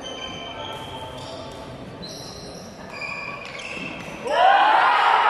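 Court shoes squeaking on the badminton court floor during a rally: a string of short, high squeals. About four seconds in, a loud, drawn-out shout from a player as the rally ends.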